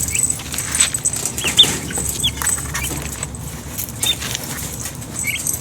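Light metallic clinking and rattling of parts being handled and fitted together, with several short, rising high chirps from small birds scattered throughout.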